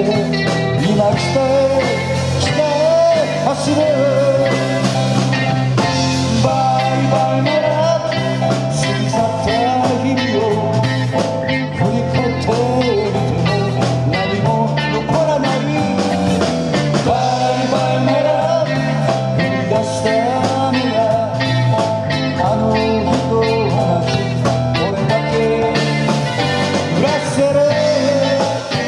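Live rock band playing an electric-guitar-led song with keyboard and drum kit: a lead line wavers and bends in pitch over a steady drum beat.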